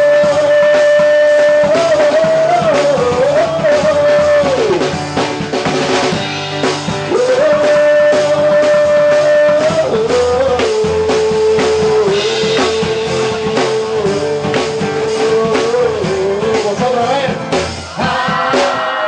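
Live rock band playing: a man sings long held notes over guitars and a drum kit.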